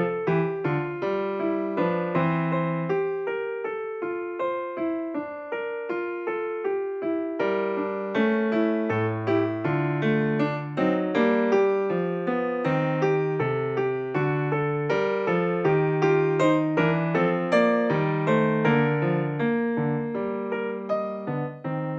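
Background music: a piano or electric piano playing a steady stream of short notes with a bass line.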